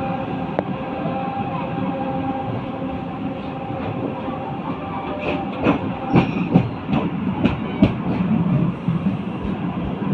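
Mumbai suburban local train running on the track: a steady rumble with a faint hum, and a quick run of sharp wheel clacks over the rail joints a little past the middle.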